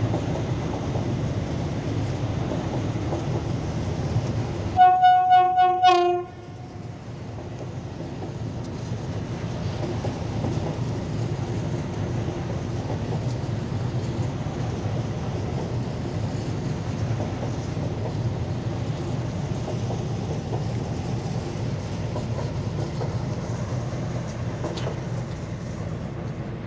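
PKP SU46 diesel locomotive running with a steady low engine rumble. About five seconds in, its horn sounds for just over a second. The engine note then builds again as the locomotive moves along the platform.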